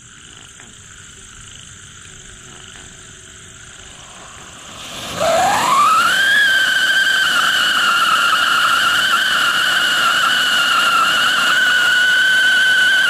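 Siren firework, a ground fountain (anar) with a built-in whistle: a soft hiss of sparks at first, then about five seconds in a loud whistle that rises in pitch and holds one steady high note.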